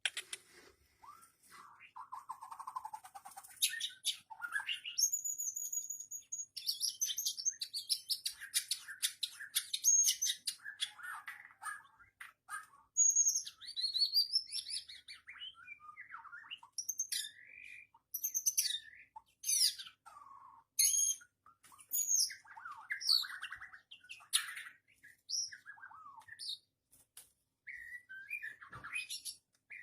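White-rumped shama (murai batu) singing: a long, varied run of high whistled phrases, fast strings of notes, and sharp rising and falling glides with short breaks between phrases.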